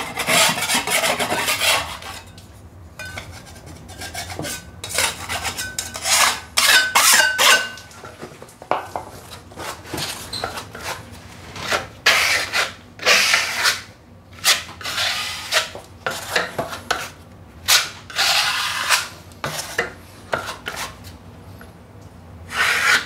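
Steel putty knife scraping in repeated strokes, spreading and scraping joint compound over a repaired paper-tape joint on a plasterboard ceiling, and loading compound off the plasterer's board. The blade gives a few short squeaks in the first third.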